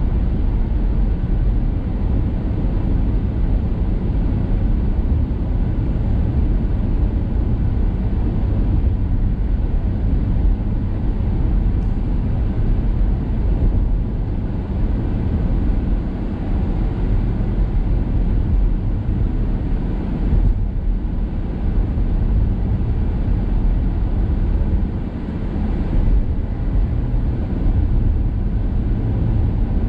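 Steady low road rumble and tyre noise of a car cruising at highway speed, heard from inside the cabin.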